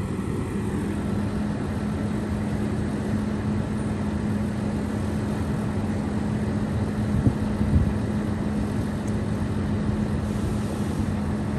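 Scania P380 vacuum excavator truck running steadily with a steady hum, its hydraulics driving the suction boom as it swings under radio remote control. Two brief knocks come about seven and eight seconds in.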